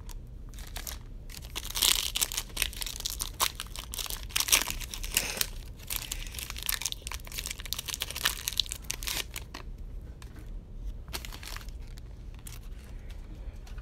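Foil wrapper of a trading-card pack crinkling and tearing as it is ripped open and handled, in irregular rustling bursts with small clicks. It is busiest from about two to six seconds in and again around eight to nine seconds.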